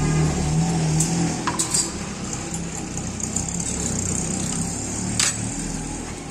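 Steady street traffic noise with a low engine hum, and a few sharp metal clinks, the steel ladle knocking against the rim of the big aluminium pot as broth is scooped out.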